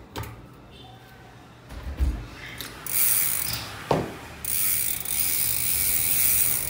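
Bicycle rear hub's freehub ratchet clicking fast as the wheel spins, in two long runs, the second one running on to the end. A dull thud comes about two seconds in and a sharp knock just before the second run.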